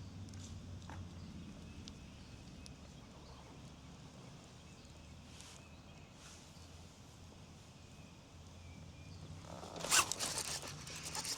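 Fishing reel being cranked fast as a bass is hooked: about ten seconds in, a sudden loud rush, then a rapid rattling of the reel's winding. Before that only faint hiss and scattered small ticks.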